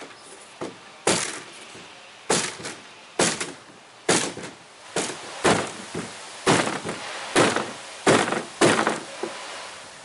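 A hammer striking a wooden block held against a canoe's gunwale, about ten sharp blows roughly one a second, to bend the gunwale back straight.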